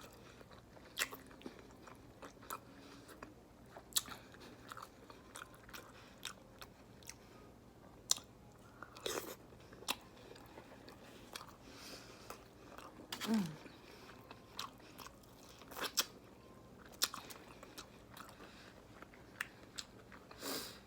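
Close-miked eating: chewing with irregular wet mouth clicks and lip smacks.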